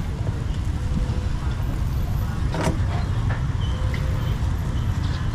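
Street traffic: motor vehicles running past in a steady low rumble, with one short sharp knock about two and a half seconds in.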